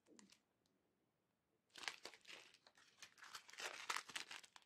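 Small clear plastic packets of diamond painting drills crinkling as they are handled, in irregular bursts that start a couple of seconds in.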